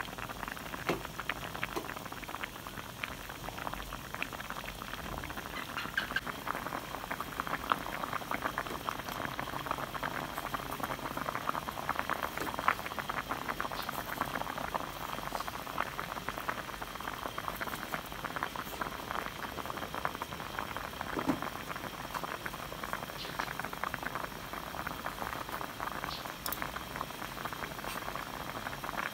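Coconut milk boiling in a pot with fish: a steady bubbling made of many small pops and crackles.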